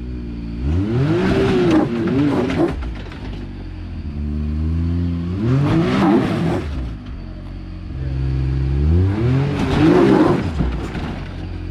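Can-Am Maverick X3's turbocharged three-cylinder engine revving three times as the side-by-side climbs a rock ledge. Each rev rises and falls back to a lower steady running note between them.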